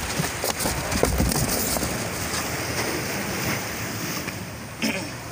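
Sea surf washing against a rocky shore, with wind buffeting the microphone and a few short knocks in the first second or so.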